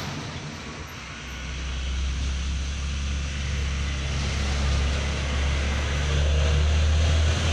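Diesel engine of a heavy truck-and-trailer rig hauling a full load of sugarcane, a low steady drone that grows gradually louder as the truck approaches.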